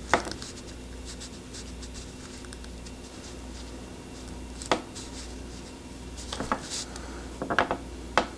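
Handling noise: a few light taps and small rubbing sounds from fingers holding the two halves of a broken pencil together and shifting a UV light pen, most of them in the last couple of seconds, over a steady low hum.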